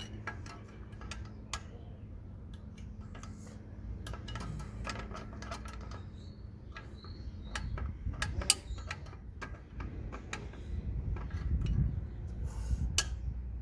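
Irregular metallic clicks, clinks and knocks of hand tools and parts being worked on the back axle of a Suzuki Jimny, with a steady low hum underneath in the first few seconds.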